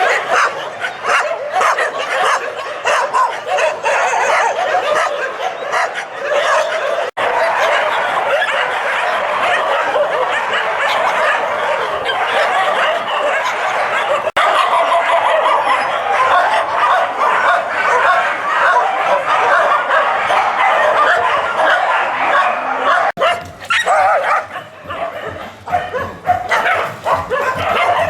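Many dogs barking and yipping at once in a dense, continuous din, with a few whimpers. The sound cuts off abruptly three times and starts again.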